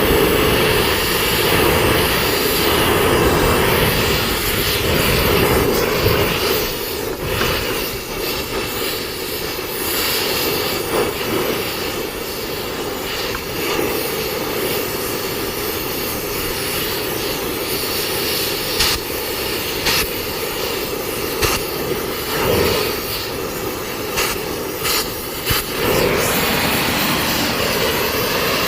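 A cutting torch running with a steady roaring hiss as it cuts a rusted, seized bearing off a feed wagon shaft, with a scattering of short sharp cracks.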